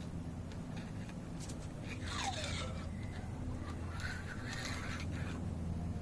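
Two short bouts of metal scraping and rattling, about two seconds in and again about four seconds in, the first with a falling pitch, as a motorcycle fork spring is fitted into its fork tube. A steady low hum runs underneath.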